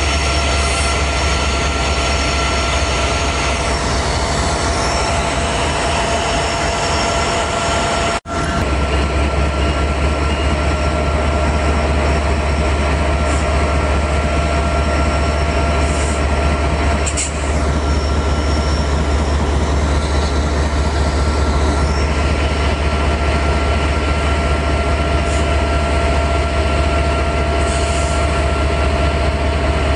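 Diesel-electric freight locomotives of a CN train running close by: a loud, steady drone with a constant high-pitched ringing tone over it. The sound cuts out for an instant about eight seconds in.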